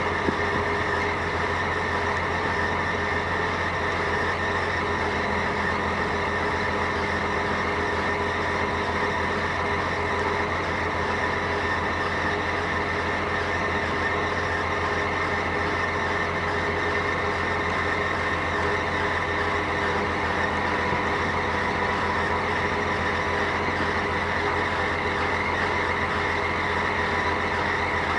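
Heavy diesel engine running steadily at an even pitch, with no revving or change in speed.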